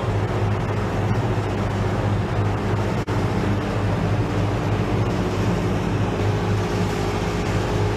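Steady drone of running machinery with a strong low hum, broken for an instant about three seconds in.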